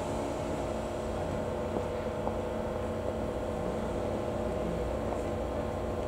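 A train standing and idling: a steady low engine rumble with a constant mid-pitched hum.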